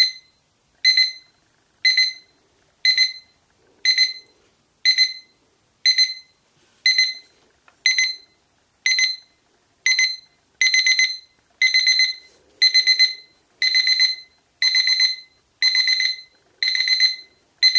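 Cheap backlit LCD alarm clock's alarm going off with very loud, high-pitched electronic beeps about once a second. About ten seconds in, the beeps turn into quicker, denser groups, the alarm stepping up.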